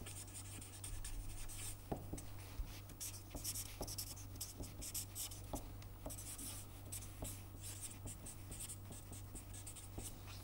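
Felt-tip marker pen scratching across paper in short strokes as words and a formula are written, with small ticks as the tip touches down; a faint steady low hum underneath.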